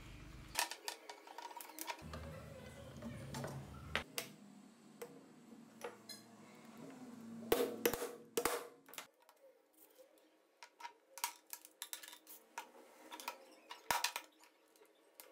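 Handling noise of a plastic quick-release bar clamp and its small metal parts on a workbench: scattered sharp clicks and knocks, with a cluster of louder knocks about eight seconds in.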